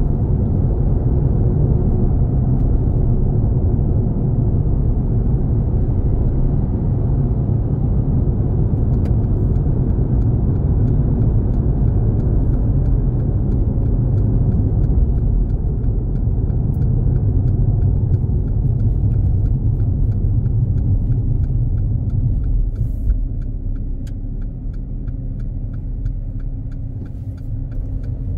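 Car road noise heard from inside the cabin: a steady low rumble of tyres and engine at highway speed. From about a third of the way in, an even ticking of the turn indicator runs on, and near the end the rumble drops as the car slows for a turn.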